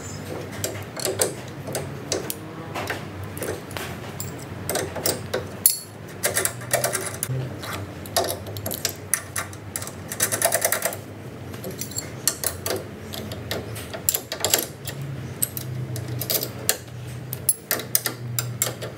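Metal clinks and clicks of spanners, nuts and washers being fitted to a go-kart's rear bar mount, with two runs of rapid clicking from a ratchet spanner turning a nut.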